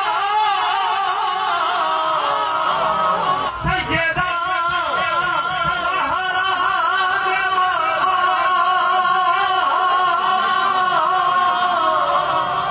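A man reciting a naat, singing long wavering held notes through a microphone and loudspeakers, with a brief break about three and a half seconds in.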